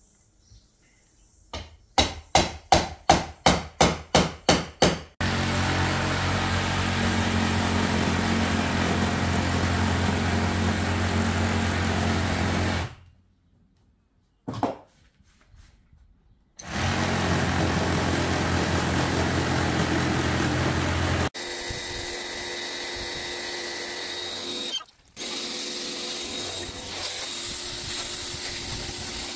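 A run of about ten quick knocks, then a reciprocating saw running steadily as it cuts through old wooden floorboards. It stops for a second or two and then starts again. After a sudden cut, a pressure washer sprays water against the house's outside wall.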